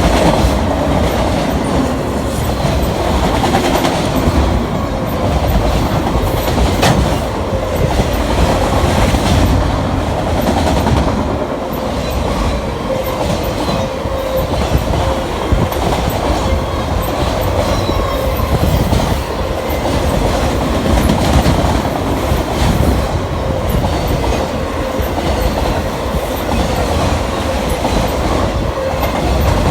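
Freight train of autorack cars rolling past, a steady loud rumble with the clickety-clack of steel wheels over rail joints.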